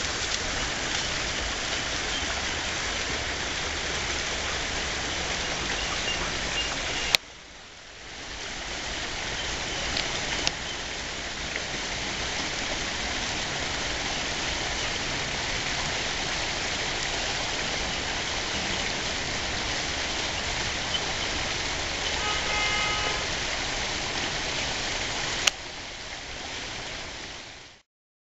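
Steady, even rushing hiss on an outdoor camera microphone, with no distinct source. It is broken by two sharp clicks at the edit cuts, each followed by a dip and a slow return of the noise. A few faint high pips come near the end, then the noise fades out.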